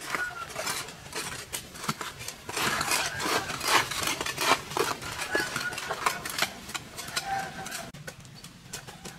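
Irregular clatter of knocks and clicks, thickest in the middle, with a few short chirps.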